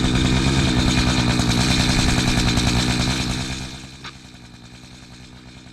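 Chainsaw engine running at high revs, then dropping back to idle a little over three seconds in.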